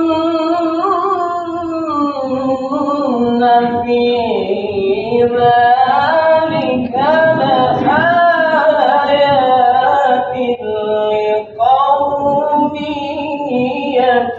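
A male qari reciting the Quran in the melodic tilawah style, unaccompanied: one long sustained phrase with ornamented rises and falls in pitch, a short breath about eleven and a half seconds in, then the next phrase begins. The reciter is performing through a cough and flu, relying on diaphragm breath control.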